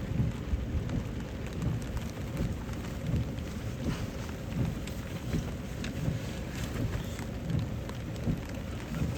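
Steady rain falling on a car's roof and windows, heard from inside the car through a cracked window, with an uneven low rumbling drumming underneath.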